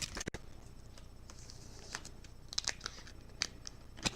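Trading cards being handled and sorted, with faint scattered clicks and light rustles of card stock.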